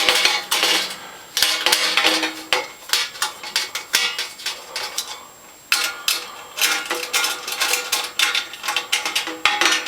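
Small metal tool clinking and scraping against tiny nuts and bolts as they are tightened into a sheet-metal panel: quick, irregular metallic clatter with a short lull about halfway through.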